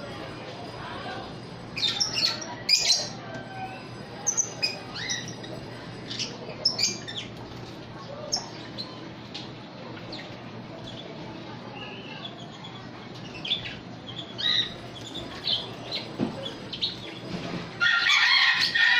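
Budgerigars and a rose-ringed parakeet in an aviary giving scattered short chirps and squawks. Near the end comes a louder flurry of calls and wing flaps as the ringneck drops down to the feeding trough.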